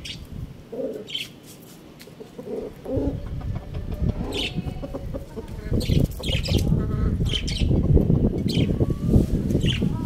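Small birds chirping, short high chirps about once every second or so. From about three seconds in, a loud low rustling rumble joins them and stays on.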